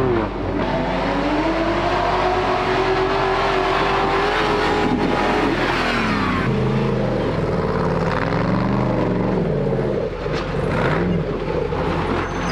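Off-road 4x4 engine revving, its pitch rising and falling repeatedly under changing throttle.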